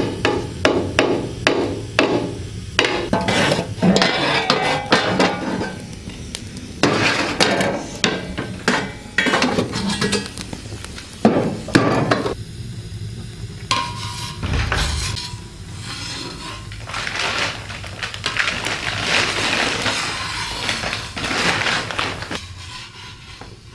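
Repeated metal clanks and knocks on a small wood-burning iron stove as its iron lid is handled with a hook. The knocks come thick and fast in the first half and more sparsely later.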